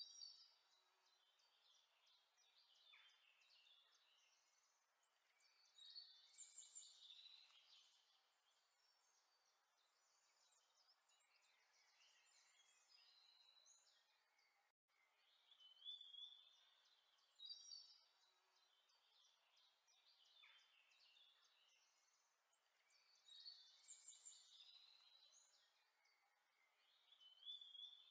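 Faint birdsong: clusters of high chirps and trills every few seconds, with a brief dropout about halfway through.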